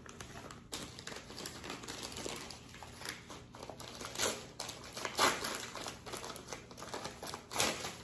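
White packaging wrapping crinkling and rustling as it is handled and unfolded by hand, with a few louder crinkles about four, five and seven and a half seconds in.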